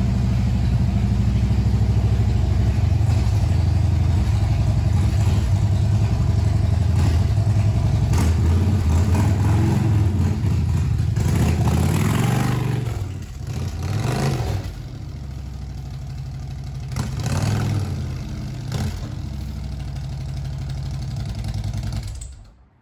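Harley-Davidson V-twin touring motorcycle engine running with a deep, loud rumble. Midway it revs up and down as the bike is ridden up the loading ramp. It then runs more quietly and is switched off near the end.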